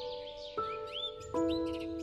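Background music of held chords that change about every three-quarters of a second, with birds chirping rapidly over it.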